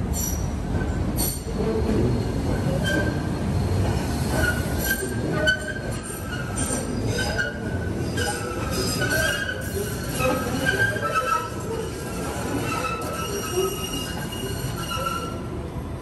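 MBTA Green Line light-rail train rolling through an underground station, its steel wheels squealing on the rails in several high, shifting tones over a steady low rumble.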